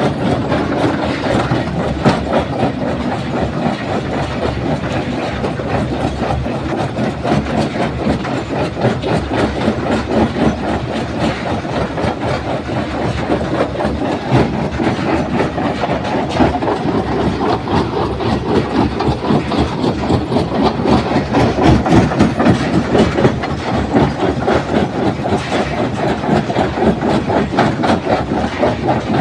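Stone crusher plant running: a steady, loud machinery noise with a constant rattling clatter of rock.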